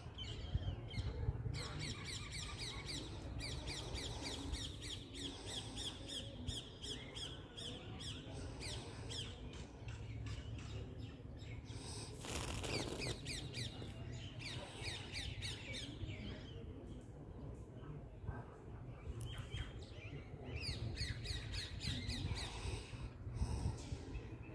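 Small birds chirping in fast, repeated trilling runs, over a steady low rumble. About halfway through there is a brief noisy rustle.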